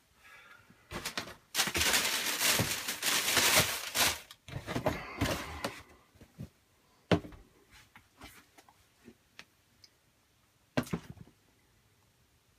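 Sneaker packaging being handled: several seconds of loud rustling and crinkling, then two sharp knocks about four seconds apart.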